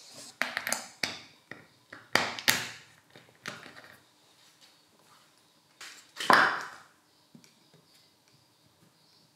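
Handling noise of a hard plastic power-tool housing on a wooden workbench: a series of short knocks and scrapes as it is picked up, turned and set down, with one louder knock a little past six seconds in.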